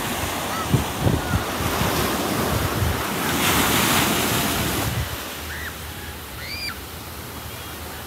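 Ocean surf washing on a rocky shore, with wind gusting on the microphone. The wash swells about three seconds in and eases off after five, and the wind dies down in the second half. A few short high chirps come near the end.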